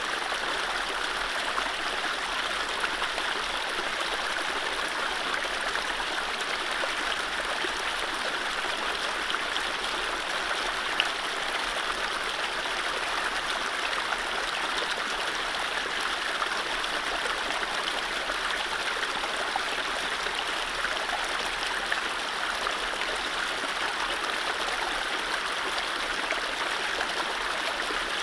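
Mountain stream flowing over low rapids: a steady rush of running water, with no birdsong.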